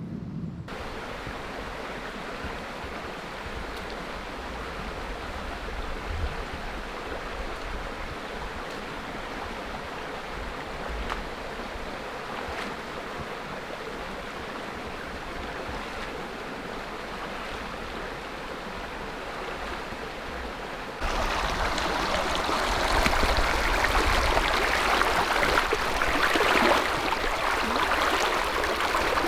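A creek's running water, a steady rushing noise that turns suddenly louder and brighter about two-thirds of the way through.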